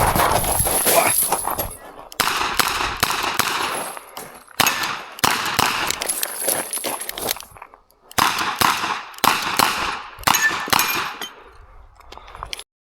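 Revolver shots fired in quick strings of several, with short pauses between strings. The sound cuts off abruptly near the end.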